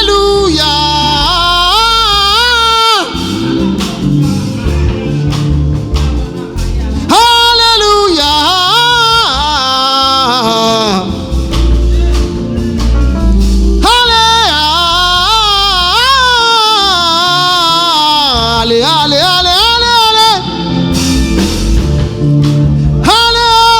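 A trumpet plays a slow, wavering gospel melody in phrases of a few seconds with short breaks between them, over a bass and keyboard backing.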